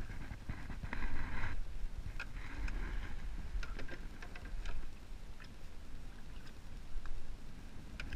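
Wind noise on the microphone, with rustling and scattered sharp clicks and taps as a perch is swung aboard a small aluminium boat and unhooked by hand; the clicks come thickest about four seconds in.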